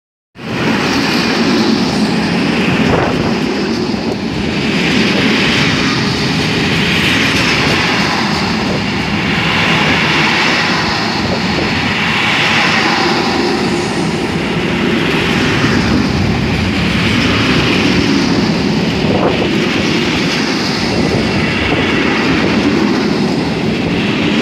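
Freight train of flat and covered wagons rolling past close by: a loud, steady rumble of wheels on the rails that swells and fades about every two and a half seconds. Two sharp knocks, about three seconds in and about nineteen seconds in.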